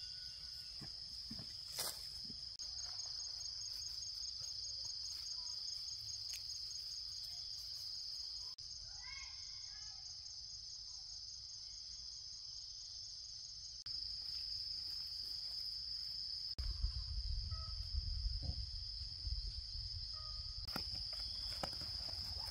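A steady, high-pitched chorus of insects. A few short chirps come near the middle, and there is low rumbling and a few thumps over the last several seconds.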